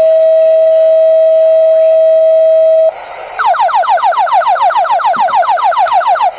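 Fire dispatch radio alert tones: the second tone of a two-tone page held steady for about three seconds, then, after a short gap, a rapid falling-sweep alert tone repeating about seven times a second. The tones alert the engine company ahead of the dispatcher's voice call.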